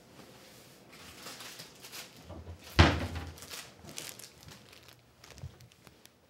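Cloth rustling as a suit jacket is pulled on and shrugged into place, with one loud thump about three seconds in.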